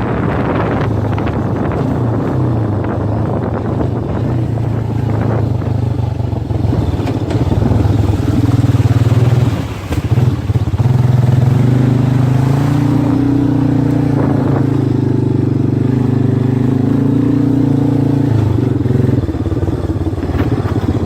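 An engine running steadily, its pitch shifting slightly, with a brief drop in level about ten seconds in.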